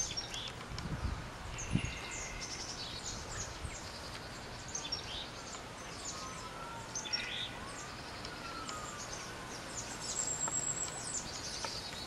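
Many small songbirds chirping and calling from the trees, their short high chirps overlapping throughout. There are a couple of low thumps about a second in.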